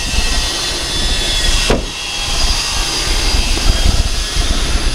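Wind rushing over the microphone, with a single thump about two seconds in as the hatchback's rear hatch is shut.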